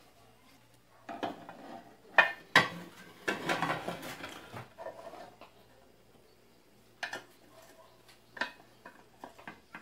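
Aluminium pressure-cooker pot being handled and turned over on a wooden bench: a busy stretch of clanks and knocks of the metal pot, with two sharp knocks in it, then a few short knocks near the end.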